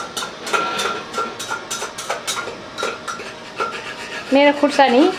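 A metal utensil scraping and knocking in a frying pan as meat is stir-fried, in quick irregular strokes, some knocks leaving a short metallic ring. A voice calls out briefly near the end.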